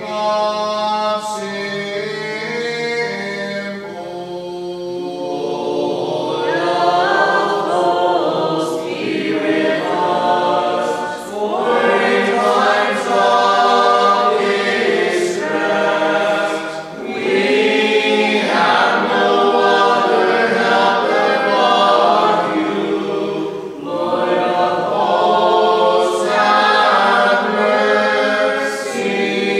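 Several voices singing an Orthodox liturgical chant a cappella in harmony, phrase by phrase with brief breaks between phrases. It starts softer over a held low note and grows fuller about six seconds in.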